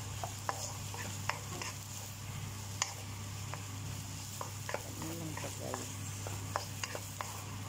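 Wooden spatula stirring and scraping egg, peas, carrots and onion around a wok, giving irregular taps and scrapes over a faint sizzle of frying and a steady low hum.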